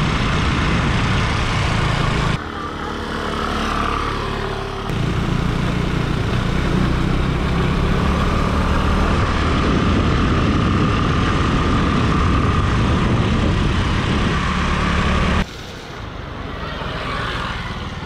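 Motorcycle engine running at road speed, mixed with heavy wind rush on the microphone. The sound drops in level twice, briefly about two seconds in and again near the end.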